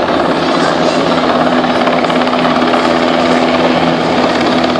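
Helicopter flying close by, its rotor and engine making a loud, steady noise with a steady hum that grows stronger about two seconds in.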